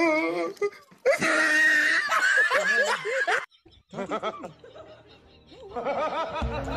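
Hearty laughter in wavering bursts for about three and a half seconds, cutting off abruptly; after a short gap, softer voice sounds return near the end.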